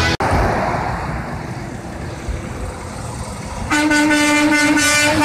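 Road traffic rumble as a semi truck approaches, then the truck's air horn sounds a loud, steady blast starting near the end.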